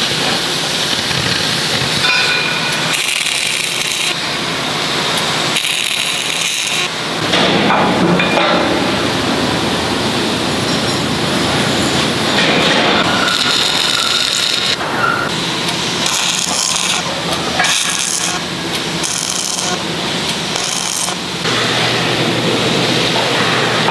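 Arc welding on heavy steel plate: the welding arc crackling and sputtering in stretches of one to a few seconds, stopping and starting again as seams are laid on an excavator bucket.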